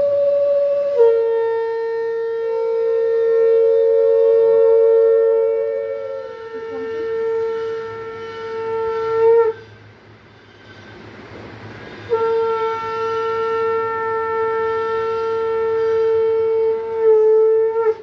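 Conch shells (shankha) blown in long, steady, held blasts, each one note with overtones. For a few seconds, two conches sound together at slightly different pitches. The blowing breaks off about nine and a half seconds in and starts again about two and a half seconds later.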